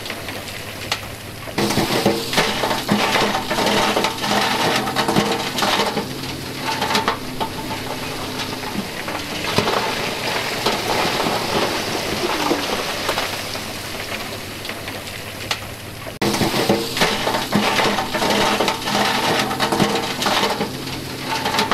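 Loose rock clattering and pouring off a tipped dump truck bed and splashing into water, over the steady hum of heavy diesel engines. The sound jumps abruptly about a second and a half in and again about 16 seconds in.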